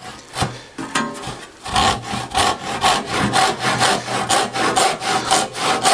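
Western handsaw ripping through pine, resawing a thin veneer from the end of a board held in a vise. A few light strokes at first, then about two seconds in steady rasping back-and-forth strokes, roughly three to four a second.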